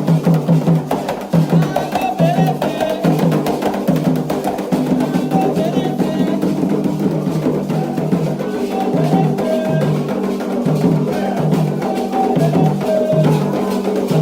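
Candomblé ritual music: drums beat a steady repeating rhythm while voices sing over them.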